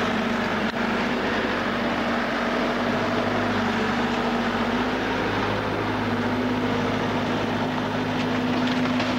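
An engine running steadily at a constant speed with a low, even hum, most likely heavy machinery working the demolition.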